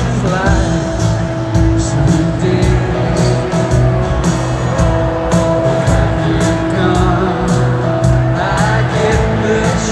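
Live rock band playing in a stadium, heard from the crowd: held guitar notes over a bass line and a steady drum beat of about two hits a second.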